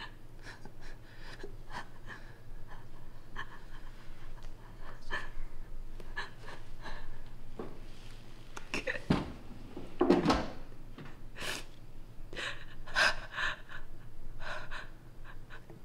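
A person breathing in gasps, one short breath after another, with a louder gasp about nine to ten seconds in.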